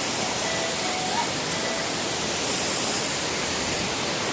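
Waterfall's water rushing in a steady, even hiss.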